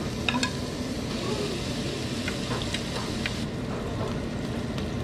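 Pork belly sizzling on a tabletop Korean barbecue grill, with a few sharp clicks of tongs against the grill plate as the slices are laid out.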